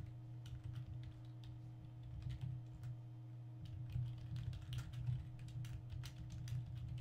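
Typing on a computer keyboard: quick, irregular key clicks with a short lull partway through, over a steady low electrical hum.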